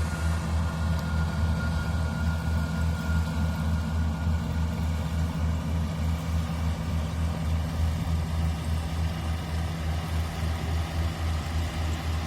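Daedong DSC-62G half-feed combine harvester's diesel engine running steadily, a low pulsing drone, with a thin high whine that fades out about four seconds in.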